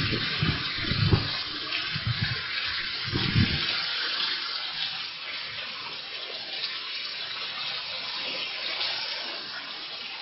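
Heavy rain pouring steadily, a dense hiss that eases slightly toward the end. A low, uneven rumble runs under it for the first three and a half seconds, then stops.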